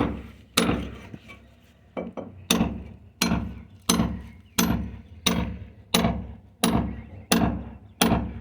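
Steady hand-hammer blows, about one every two-thirds of a second, each sharp strike ringing briefly. There is a short pause about a second in. The work is knocking a hole or fixing into a wall by hand rather than drilling it.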